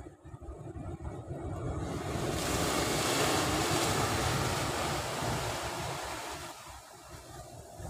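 Sea waves surging in and breaking against the rocks below, swelling to a peak about three seconds in and then washing out, with wind buffeting the microphone.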